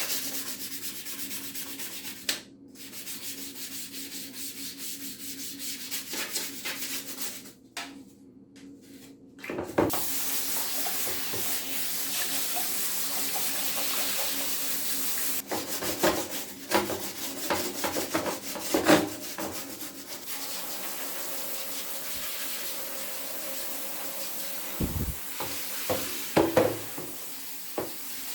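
Rubbing and scrubbing while cleaning parts of a vintage mechanical keyboard. The scrubbing stops short twice in the first ten seconds, then turns into a steadier, louder hiss from about ten seconds in, with scattered knocks.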